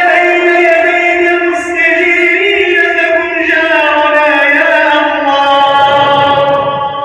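A man chanting a supplication, holding one long drawn-out melodic note that slides slowly in pitch, with no clear words.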